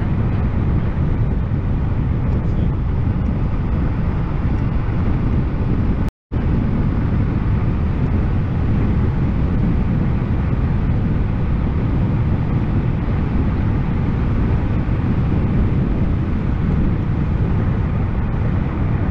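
Steady rush of wind and road noise from riding a YUME X7 electric scooter at speed, heaviest in the low end. The sound cuts out completely for a split second about six seconds in.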